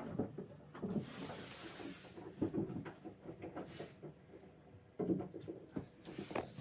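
A wooden door being handled and shifted in its frame: scattered knocks and rubbing, a hissing scrape lasting about a second near the start, and a sharper knock about five seconds in.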